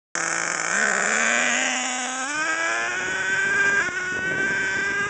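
HPI Savage XL's K5.9 big-block nitro engine revving as the truck accelerates away, a high-pitched buzzing whine that climbs in pitch in steps over the first couple of seconds, then holds high.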